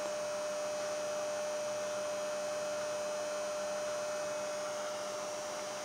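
Steady electrical hum: one clear constant tone with a few weaker ones beneath it, over a faint even hiss.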